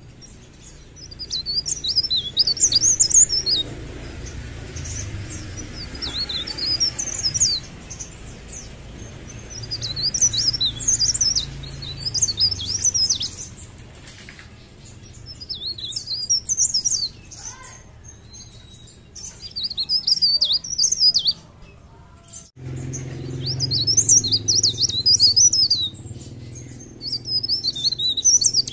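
A caged blerengan (cikrak daun) leaf warbler singing lively song: repeated bursts of rapid, high, jittery twittering a few seconds long, with short pauses between them.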